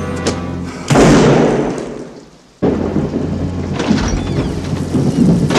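A thunderclap rolls in about a second in and dies away, then heavy rain comes back abruptly and runs on.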